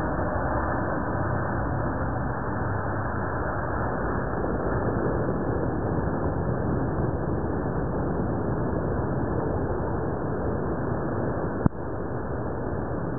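Steady city street noise with a low traffic rumble. A single sharp click comes near the end, after which the noise is slightly quieter.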